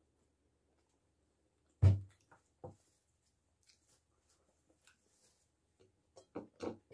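Close-up eating sounds as a piece of beefsteak is taken by hand and chewed: one sharp knock about two seconds in, then a few faint clicks, and short wet mouth sounds of chewing near the end.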